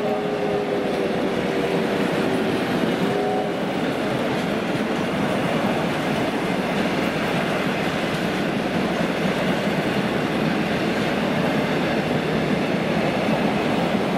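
Passenger train carriages rolling past close by at speed: a steady, loud rush of steel wheels on the rails. A held tone of several notes dips slightly and fades out about three seconds in.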